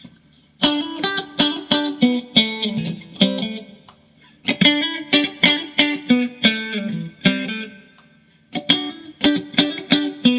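Mexican-made Fender Stratocaster electric guitar in drop D tuning, played in three short phrases of picked notes and chords after a fresh setup, each phrase ringing out and fading before the next begins.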